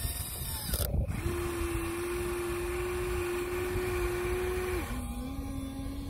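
Huina 1:14 scale RC excavator's small electric drive motors whining steadily as the boom and bucket lift a scoop of sand. The whine starts about a second in and drops to a slightly lower pitch near the end.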